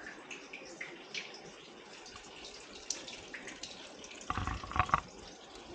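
Stream water trickling and splashing over rocks, with scattered small knocks and a short cluster of louder low thumps and rumble about four and a half seconds in.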